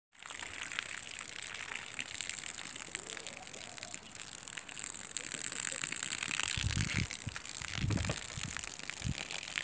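Garden hose spraying a thin jet of water in a steady hiss, with the spray crackling on the grass and leaves. A few low rumbling bumps come in near the end.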